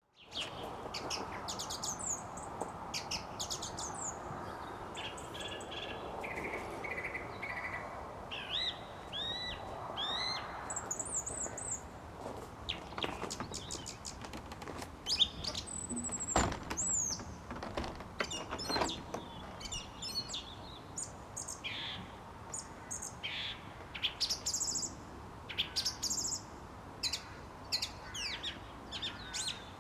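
Song thrush singing in a dusk chorus: short, varied phrases of sharp whistles and chirps, several repeated in quick runs of two or three, with other birds calling, over a steady low background noise.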